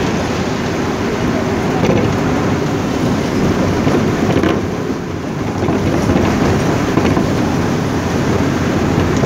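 Steady cabin noise of a moving vehicle in heavy rain: engine and road rumble mixed with rain on the windows.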